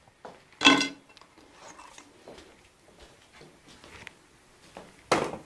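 Faint handling noises from a training mannequin head being moved and touched on its stand, with one short louder sound under a second in.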